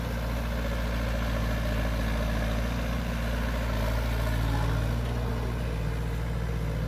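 Sumitomo S160 hydraulic excavator's diesel engine running steadily as the machine digs a ditch and lifts a bucket of mud.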